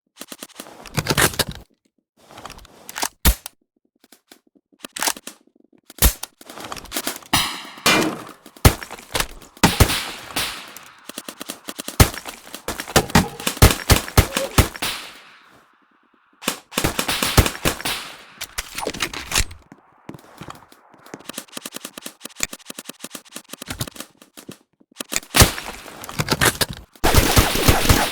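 Airsoft guns firing in rapid bursts and strings of single shots, with short pauses between volleys.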